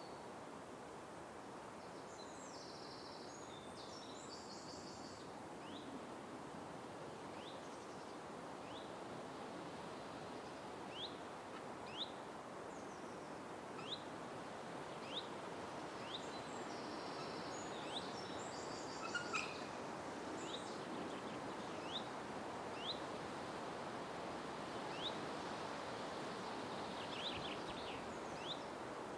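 Forest ambience: a steady background hiss with a bird giving short, rising chirps about once a second from several seconds in. Brief higher buzzy calls come near the start and again in the middle.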